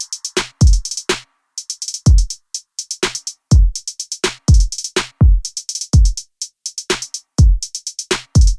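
Background music: an electronic drum-machine beat of deep bass hits that slide down in pitch, with fast hi-hats between them.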